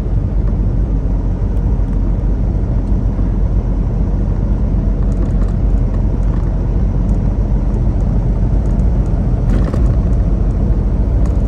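Semi truck's engine and road noise droning steadily inside the cab while driving, with a brief rattle near the end.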